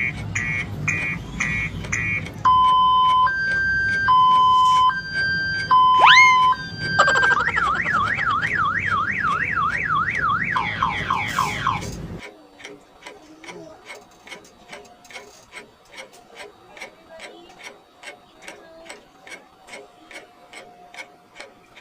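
Electronic alarm tones in quick succession: rapid beeping, then a hi-lo two-tone siren, then a fast wailing siren that ends in falling sweeps. About twelve seconds in it stops, and a clock ticks steadily and more quietly, two to three ticks a second.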